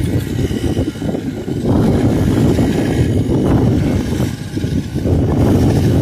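Rice combine harvester running close by, a steady engine-and-machinery rumble that grows louder about two seconds in and again near the end.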